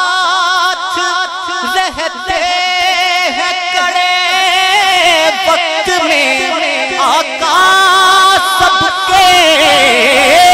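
A man singing a naat, the opening of a couplet drawn out in long held notes with wavering, ornamented pitch and no clear words.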